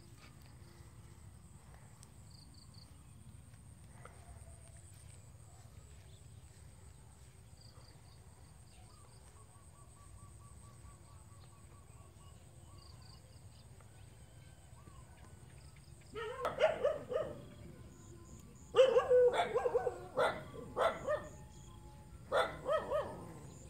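A dog barking in three short bouts in the last third, after a long quiet stretch of faint background.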